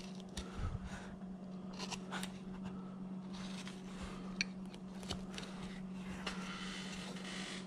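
Carving knife slicing thin shavings from a wooden figure: soft, irregular scraping cuts with a few light clicks, over a steady low hum.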